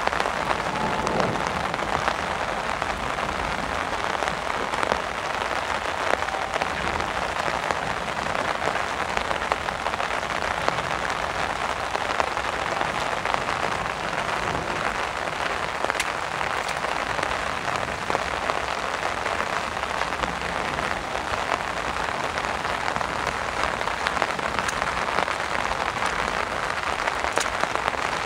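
Heavy rain falling steadily, an even dense hiss of drops.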